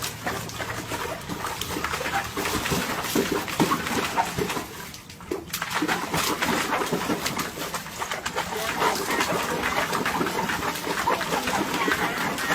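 Retriever puppy vocalising in short, irregular sounds.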